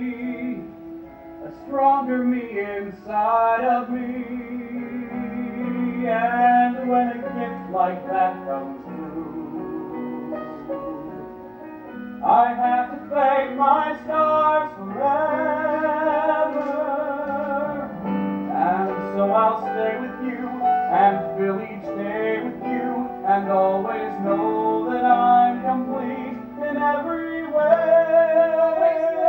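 Female and male voices singing a slow musical-theatre duet ballad with vibrato, over instrumental accompaniment.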